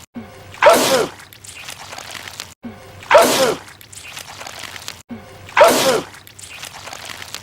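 A man's sneeze repeated three times about two and a half seconds apart, the identical sneeze each time. Each one is a short, loud sneeze that falls in pitch.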